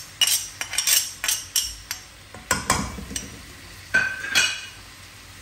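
Metal slotted spoon scraping, tapping and clinking against a metal cooking pot and a bowl as chopped vegetables and garlic paste are scraped in: a string of sharp clinks and knocks, loudest about halfway and again near four seconds in, one with a brief metallic ring.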